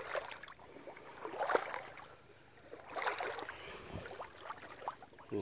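Faint water sloshing and a few gentle splashes as someone moves through shallow pond water.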